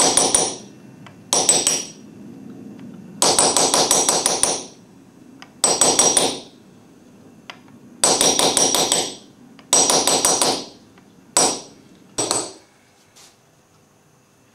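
Small hammer tapping a metal punch against a copper sheet, chasing a relief design, in about eight short runs of quick strikes with a high metallic ring, separated by brief pauses.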